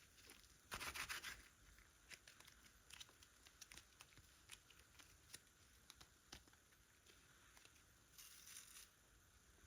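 Faint crackling and rubbing from slime being handled. There is a short crackly burst about a second in, another near the end, and small clicks in between.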